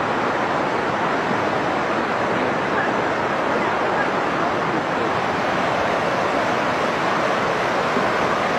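Muddy river in flash flood, its fast brown water rushing with a steady, unbroken noise.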